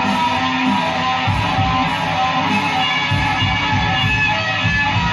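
Electric guitar playing a continuous instrumental passage, a dense stream of notes over a busy low end.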